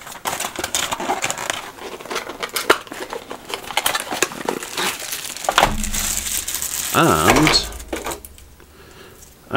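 Clear plastic bag crinkling and rustling as it is handled, with a few small clinks, during the first five seconds or so. A low rumble follows near the end.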